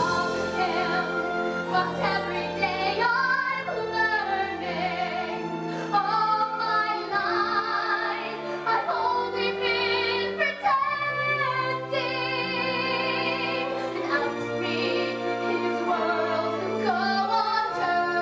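A woman singing a slow musical-theatre ballad solo over instrumental accompaniment, with long held notes sung with vibrato.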